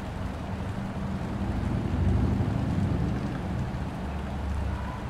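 Tour boat's engine running with a steady low rumble, which swells about two seconds in.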